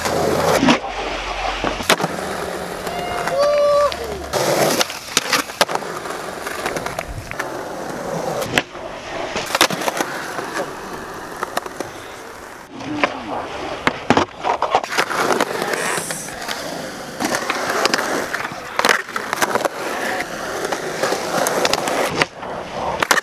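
Skateboard wheels rolling on rough concrete, broken by many sharp wooden clacks as the boards pop, land and hit the ground during tricks.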